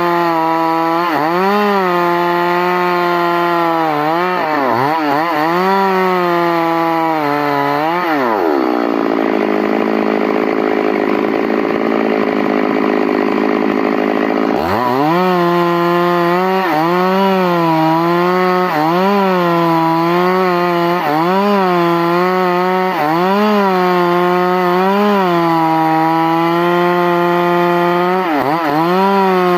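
Stihl MS 382 two-stroke chainsaw running hard, its engine note dipping and recovering again and again. For several seconds in the middle the note holds steadier and rougher.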